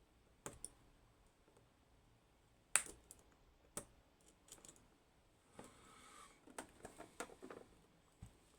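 Faint, scattered clicks and taps of small metal parts of a disassembled pin tumbler lock core being handled, with a sharper click nearly three seconds in and a short rustle after about six seconds.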